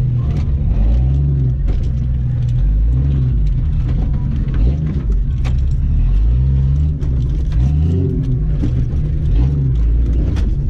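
Jeep Cherokee XJ engine heard from inside the cab, its revs rising and falling as it crawls slowly through a rock obstacle course. Frequent short clicks and rattles from the cab run through it.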